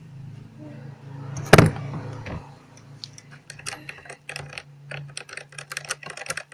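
Stirrer clicking and tapping against a container while slime mixture is stirred, with one louder knock about a second and a half in and quick irregular clicks through the second half.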